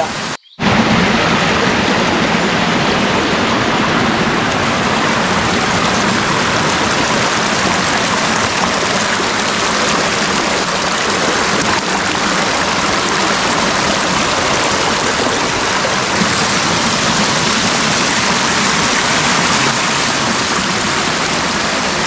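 Forest stream running full in the rainy season, its water tumbling down the slope in a loud, steady rush, with a brief break just after the start.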